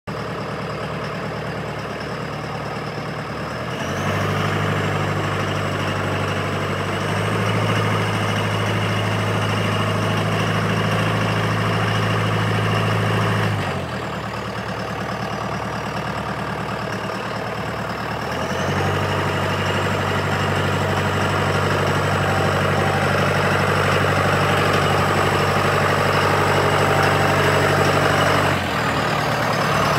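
John Deere 5105M tractor's four-cylinder diesel engine idling, then raised to a higher steady speed twice, each time for about ten seconds before dropping back to idle. A faint high whine rises and falls with each step up in speed.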